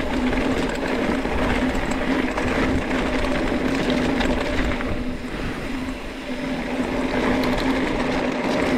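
Mountain bike moving along a dirt trail: rolling and rattling noise with a steady mechanical hum throughout.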